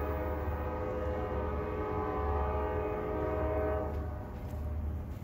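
Diesel freight locomotive horn sounding one long steady chord that cuts off about four seconds in, over a low rumble.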